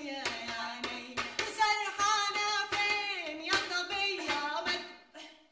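A woman singing a drawn-out, wavering melody with long held notes, over regular hand claps; the singing fades out near the end.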